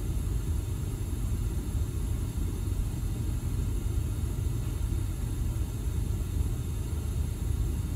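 A steady low rumble, even and without any beat or clear pitch.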